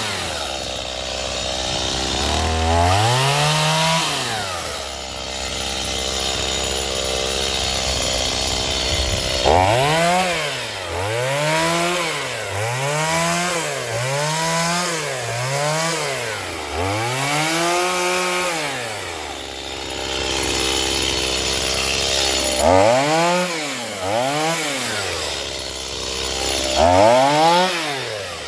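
Stihl MS210 two-stroke chainsaw idling and being revved in short throttle blips, each rising and falling back in about a second: one blip near the start, a run of about eight in the middle, and about four more near the end, with steady idling between.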